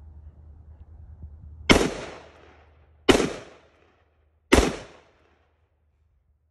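Three .223 rifle shots, about a second and a half apart, each a sharp crack with a short fading echo.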